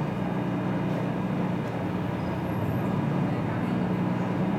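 Passenger ferry's engine running steadily under way, a low even hum with a wash of water and wind noise over it.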